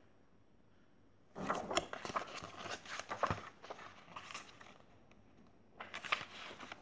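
Paper pages of a paperback picture book rustling and flapping as they are handled and turned: a longer spell of rustling with small clicks starting about a second and a half in, then a short burst near the end.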